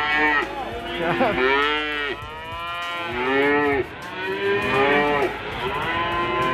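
Cattle mooing: a run of long calls, each rising and falling in pitch, following one another with only short gaps.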